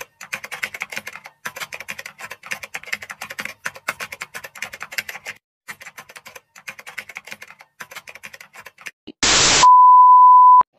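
Typewriter sound effect, keys clacking rapidly in runs with short pauses. About nine seconds in, a brief burst of TV static, then a steady high test-pattern beep that cuts off near the end.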